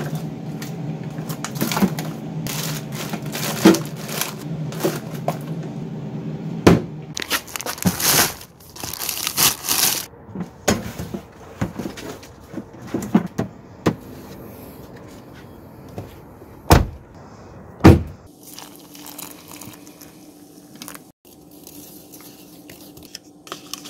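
Packing and loading clatter: drink cans, water bottles and plastic bags knocked and scraped into a plastic ice chest, with rustling and crackling. Two loud thuds come about a second apart, followed by a steady low hum.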